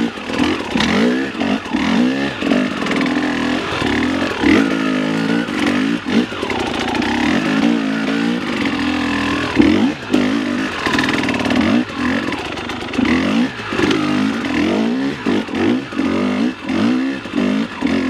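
Dirt bike engine ridden over hard enduro terrain, the throttle opened and closed again and again so the engine note keeps rising and dropping every second or so.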